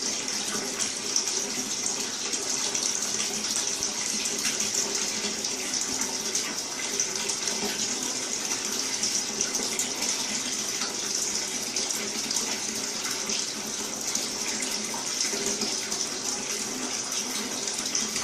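Steady rush of running water, like a tap or shower pouring, holding even throughout.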